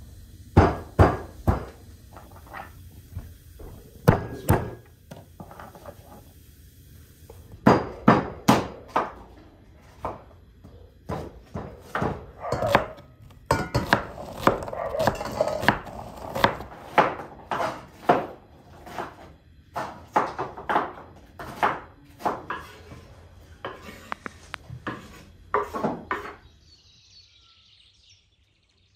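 Kitchen knife chopping onion on a wooden cutting board: irregular knocks of the blade on the board, coming in quicker runs in the middle. Near the end the knocking stops.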